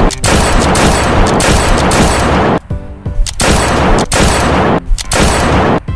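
Rapid-fire gunfire sound effect in three long bursts: about two and a half seconds, then after a short break a burst of about a second and a half, and a final burst of about a second.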